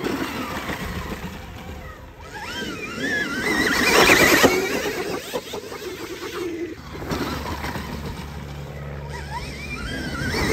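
Stark Varg electric dirt bike's motor whining as it accelerates hard on sandy dirt. The whine rises and falls in pitch with the throttle over the hiss of the rear tyre spinning and throwing sand; it is loudest about four seconds in and comes back near the end.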